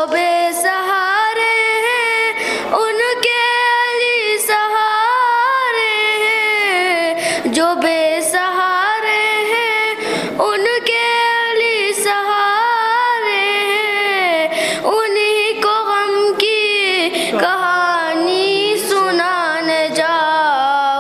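A single high voice singing a manqabat, a devotional praise poem for Fatima al-Zahra, unaccompanied, in a long ornamented melody that bends and trills with short breaths between phrases.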